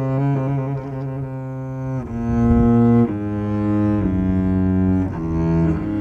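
Solo cello played with the bow: a slow melody of held notes, each lasting about a second, after a short run of quicker notes at the start.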